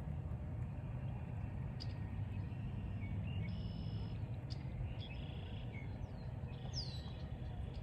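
Small birds chirping several times from about three seconds in, with a falling whistled note near the end, over a steady low outdoor rumble.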